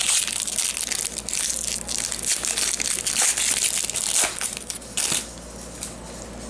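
Foil trading-card pack wrapper being crumpled in the hand: dense, crackly crinkling that stops about five seconds in.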